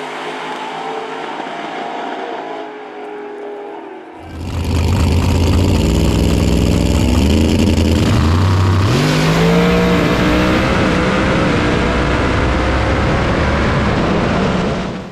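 Drag racing car engine running at low load, then about four seconds in it launches at full throttle and pulls hard down the strip, rising in pitch and stepping through the gears.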